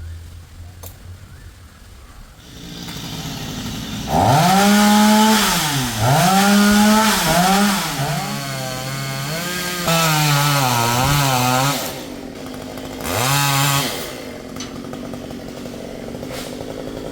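Two-stroke chainsaw revving hard several times, its pitch dipping between blips. It then holds at a lower, wavering pitch as it cuts. It drops back about twelve seconds in, with one more short rev near the end.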